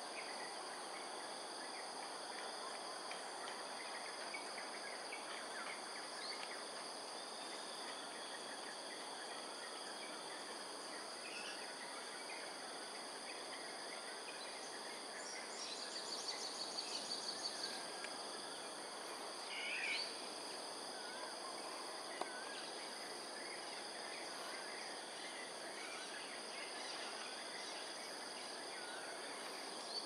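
Outdoor dawn ambience: crickets or other insects hold several steady high-pitched drones over a low background rush, with scattered small bird chirps. About halfway through a bird gives a fast run of repeated notes, followed soon after by a single louder call.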